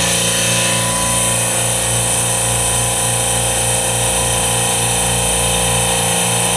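Refrigeration compressor rack running: a steady mechanical hum with several steady tones layered over it. One higher tone drops out about a second and a half in.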